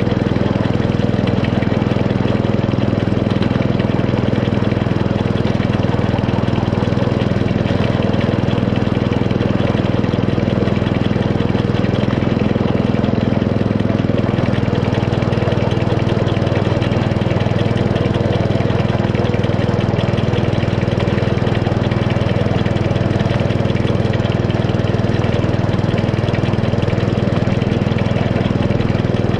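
Small petrol engine of a 7¼-inch gauge miniature railway locomotive running steadily as it hauls the train.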